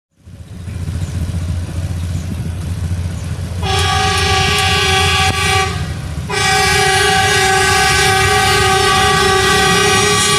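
A rail vehicle's diesel engine rumbling, then about three and a half seconds in a multi-tone railway horn sounds for about two seconds, breaks off briefly, and sounds again in a long blast.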